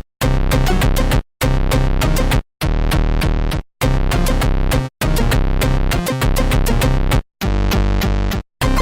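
Electronic music with a drum-machine beat, cutting out to silence for a split second about every second and a quarter.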